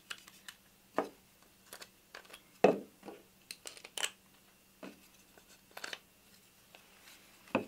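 Scattered small clicks and knocks of steel hardware and MDF parts being handled and fitted together, the loudest about two and a half seconds in.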